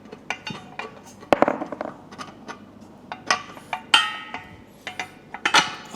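Steel bolts, nuts and washers clinking and knocking against the rack's steel base parts as they are fitted by hand: a string of sharp metallic clicks, with a louder ringing clink about four seconds in.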